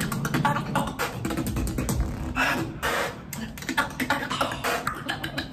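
Solo beatboxing: dense, rapid mouth clicks and percussive hits over a steady low bass, with a longer hissing snare-like burst about halfway through.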